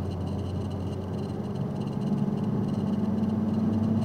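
Vehicle engine running steadily, its hum edging up slightly in pitch and loudness after about halfway. A faint rhythmic high-pitched chirping sounds above it.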